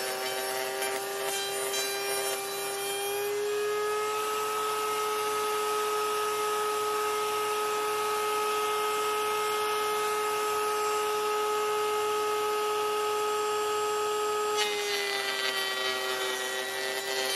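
Router in a router table running with a steady whine as a thin wooden frame side is fed along the fence past the bit, trimming a quarter inch off its side. The pitch steps up slightly about three and a half seconds in and drops back near the end.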